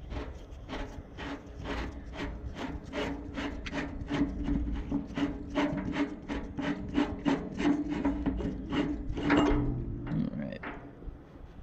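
A threaded metal pipe being unscrewed from a fuel pump fitting, the threads rasping in regular strokes about three a second. The rasping stops about ten seconds in as the pipe comes free.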